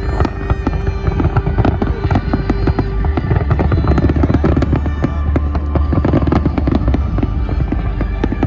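A fireworks display in a dense, rapid barrage of bangs and crackles, over music with sustained notes and heavy bass.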